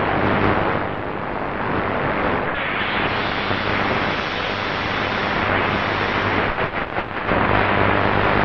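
Shortwave static and hiss from a Tecsun PL-680 portable receiver's speaker as it is tuned up the 31-metre band, with no clear station coming through. The noise changes character about two and a half seconds in and breaks up briefly in the second half as the tuning steps to a new frequency.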